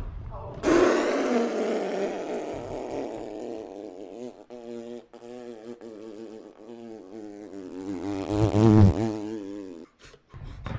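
A long buzzing, wavering tone. It starts suddenly, wobbles up and down in pitch, swells loudest near the end and cuts off abruptly.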